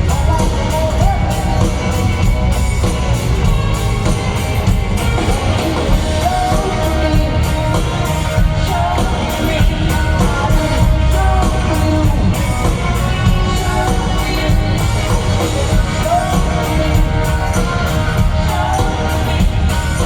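A live rock band playing loud, with heavy, steady bass and a singing voice over it.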